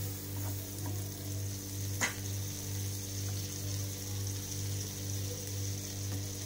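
Butter sizzling steadily around a batter-coated slice of bread frying on a nonstick tawa, over a steady low hum. A single light tap about two seconds in.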